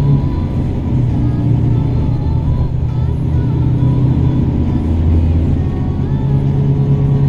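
Road vehicle driving at a steady speed, its engine and tyre noise making a steady low rumble heard from inside the vehicle.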